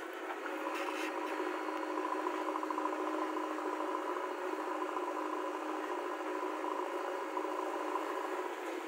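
JCB backhoe loader's diesel engine running steadily under load while the front bucket digs into soil and lifts it, with a light rattle of the machine.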